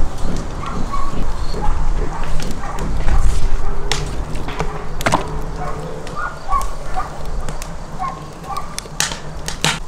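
A knife scoring whole raw chickens on a wooden cutting board, with a few sharp knocks of the blade against the board, over a steady low rumble. Short yelping calls come and go in the background.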